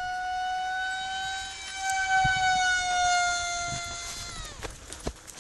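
Zagi RC flying wing's motor and propeller whining at a steady high pitch overhead, swelling in the middle, then dropping sharply in pitch and dying away near the end.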